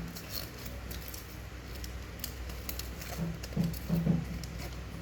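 Scattered small clicks and taps of a small plastic toy being handled, with a brief low murmur about three and a half to four seconds in.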